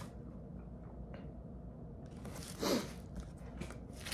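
Packaging being handled and unwrapped, quiet at first, then a short louder rustle about two and a half seconds in, followed by small scattered rustles and clicks.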